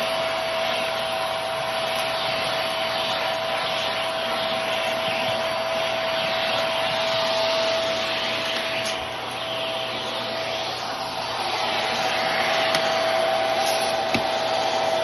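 Hart cordless handheld vacuum with a long crevice wand running steadily, picking up crumbs: a high, steady motor whine over the rush of suction air, with a couple of faint clicks.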